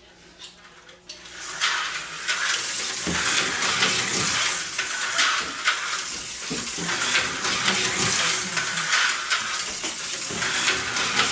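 Tyco slot car running laps around a plastic track: a rattling hiss with fine clicking that starts about a second in and stops near the end.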